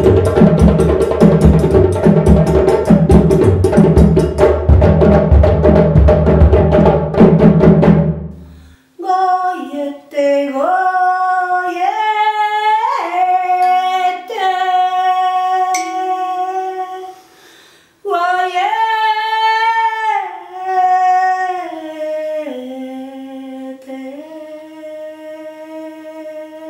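Several djembes drumming a fast, even rhythm with singing, which stops abruptly about nine seconds in. Then a woman's voice sings a slow, wordless melody alone, with long held notes and brief pauses.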